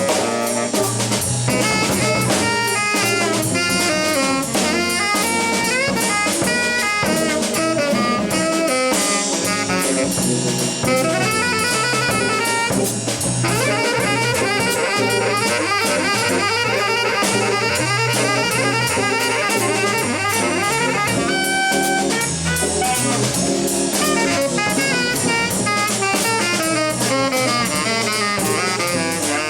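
Live jazz trio playing: a saxophone runs fast melodic lines over a drum kit with steady cymbal work. About halfway through, the horn plays a long flurry of rapid repeated notes, then goes back to its lines.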